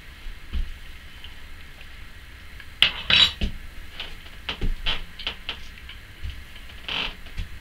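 Metal spoon clinking in a run of short, sharp taps, loudest in a cluster about three seconds in.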